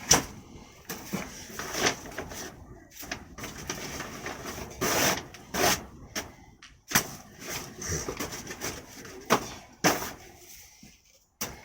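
Irregular knocks, clicks and rustling scrapes from clearing work inside a greenhouse, such as pulling weeds and moving things about, with a longer scraping rustle about five seconds in.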